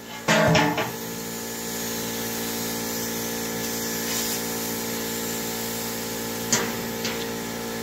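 A cut-off piece of quarter-inch steel plate drops with a brief, loud metallic clang just after the start, as the plasma cut finishes. Then a machine runs with a steady hum, with two small clicks near the end.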